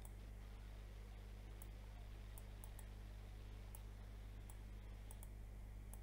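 Faint steady electrical hum with a handful of scattered faint clicks, and the sound cuts off abruptly at the very end.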